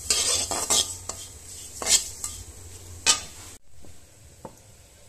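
Spatula stirring sesame seeds as they dry-roast in a metal wok, the seeds rustling, with several sharp scrapes of the spatula against the pan. It stops abruptly about three and a half seconds in, leaving only faint sounds.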